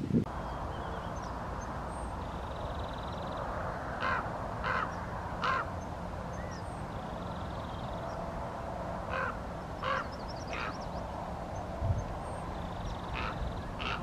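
Raven calling with short croaking caws: three in quick succession about four seconds in, two more around nine to ten seconds, and two near the end.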